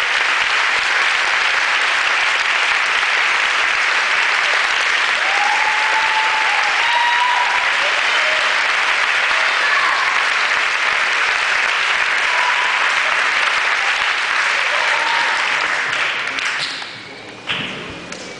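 Audience applauding steadily, the clapping dying away near the end, followed by a single thud.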